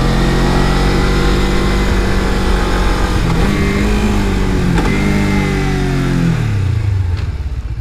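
2018 Suzuki GSX250R's parallel-twin engine running as the bike is ridden. The revs lift slightly about three seconds in, a short click comes near five seconds, and the revs fall away near the end.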